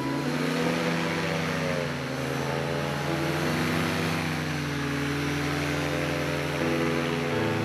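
Two-seat paramotor trike's engine and caged propeller running at high power on the takeoff roll, the engine note wavering gently up and down.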